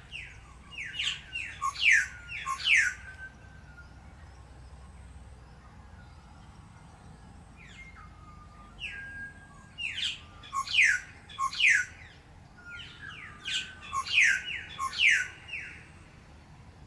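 A songbird singing in three bouts of quick, falling chirps: one at the start, one in the middle and one near the end.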